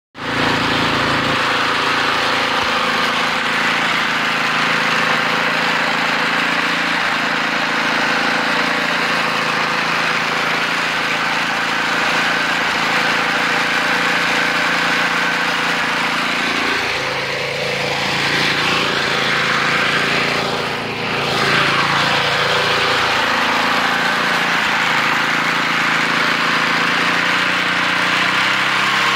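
Old John Deere walk-behind snowblower's single-cylinder engine running steadily under load while it clears heavy wet snow. Its pitch sags a little past halfway and then climbs back.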